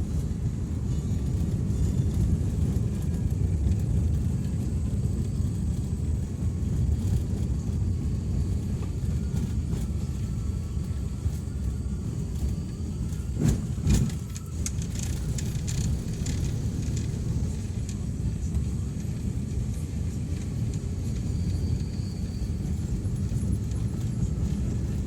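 Road vehicle travelling steadily, a continuous low rumble of engine and road noise, with a brief knock or jolt about halfway through.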